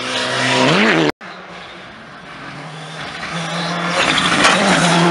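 Rally car engine revving up as it passes, cut off abruptly about a second in. Then a Ford Fiesta R5 rally car's turbocharged four-cylinder engine comes in and grows steadily louder as the car approaches on gravel.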